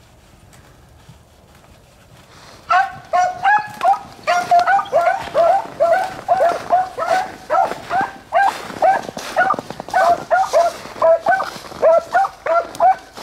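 Beagles baying on a rabbit's trail: after a quiet start, loud repeated chop barks begin about two and a half seconds in and keep coming two to three a second.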